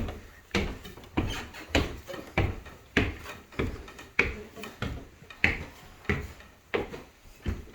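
Footsteps climbing wooden stairs, a steady tread of a little under two steps a second.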